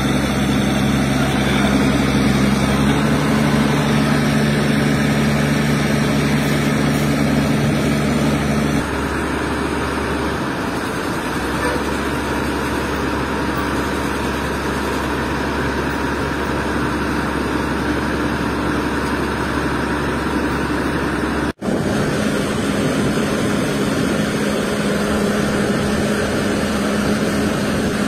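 Heavy diesel engine of a telescopic mobile crane running steadily while it hoists a precast concrete bridge girder. Its note changes about a third of the way through, and the sound breaks off for a moment about three-quarters through.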